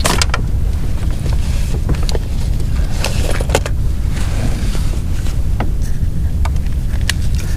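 Low, buffeting rumble of wind on the microphone, with scattered sharp clicks and knocks from tackle and handling in the boat.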